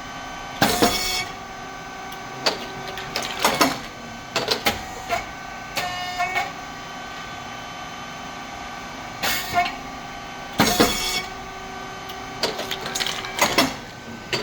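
SYP4509 rice cake popping machine with titanium-coated moulds running its production cycle. A loud burst comes about a second in and again about ten seconds later as the moulds pop the rice cakes, with shorter bursts and clicks of the mechanism in between, over a steady machine hum.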